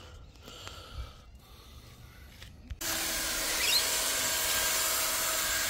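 Cordless drill spinning a scrub brush against car carpet, starting abruptly about three seconds in: a steady motor whine under the scrubbing noise of the bristles. Before it, only a few faint clicks.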